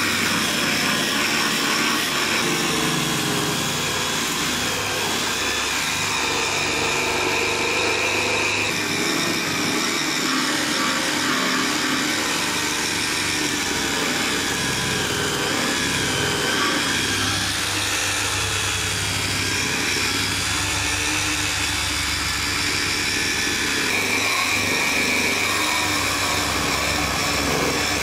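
Hand-held electric belt polisher running steadily, its abrasive belt grinding on stainless steel sheet: a motor whine that wavers slightly in pitch over a continuous rasping hiss.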